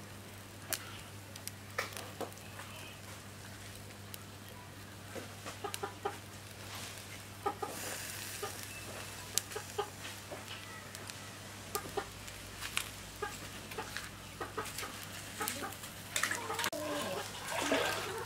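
Frogs grilling over a charcoal stove: scattered sharp crackles and pops, with chickens clucking in the background, most busily in the last few seconds.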